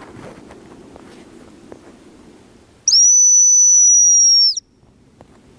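A hazel grouse lure whistle blown once: a single loud, high, thin whistle held steady for about a second and a half, dropping in pitch just as it ends, in imitation of a hazel grouse's call.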